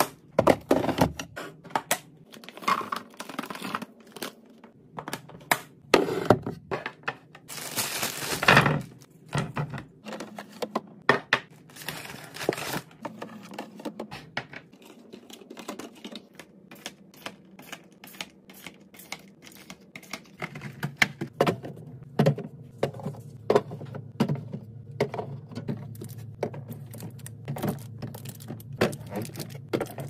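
Hard plastic clicking and knocking as food storage containers, a snap-down canister lid, small plastic drink bottles and a clear fridge bin are handled and set down, with two longer noisy stretches about eight and twelve seconds in. A low steady hum sits under the clicks in the last third.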